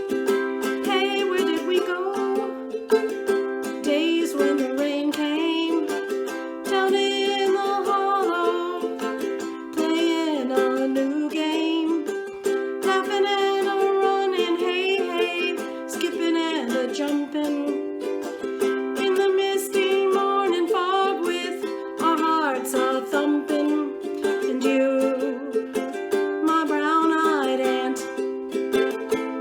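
Instrumental music: a held accompaniment under a melody that moves and wavers in pitch, without sung words.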